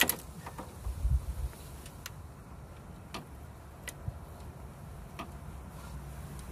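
3/8-inch ratchet on an extension and 12mm deep socket clicking in scattered single sharp ticks as a distributor hold-down bolt is worked loose. A few dull knocks about a second in.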